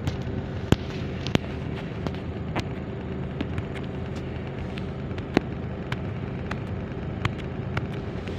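Steady low rumble of a car's cabin, with sharp clicks and taps at irregular intervals.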